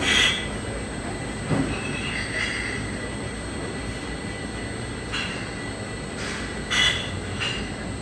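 Rotary bottle filling and capping machine on a bourbon bottling line running: a steady machine din broken by about five short, sharp high-pitched bursts, the loudest at the very start and near the end.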